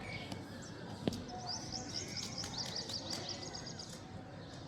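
A small bird sings a fast, high-pitched chirping trill lasting a couple of seconds, starting just over a second in. There is a single sharp click just before it, over a steady low background noise.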